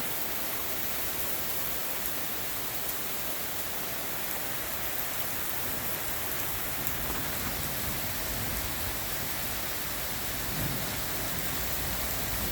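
Heavy rain pouring steadily during a thunderstorm, a constant hiss with scattered drops ticking near the microphone.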